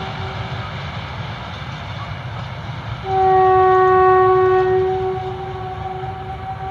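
A freight train hauled by a Eurodual locomotive rolls past with a steady low rumble of wagons on the rails. About three seconds in, the locomotive's horn sounds one loud note for about two seconds, then fades away.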